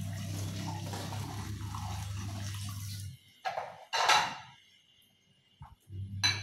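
Kitchen faucet running into a sink full of dishes while bowls are rinsed, stopping abruptly about three seconds in. Two short splashing, clattering sounds of dishes being handled follow.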